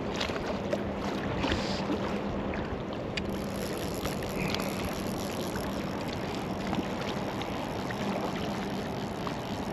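Choppy lake water lapping against an inflatable float tube, with wind on the microphone and scattered light clicks. A low steady hum runs underneath.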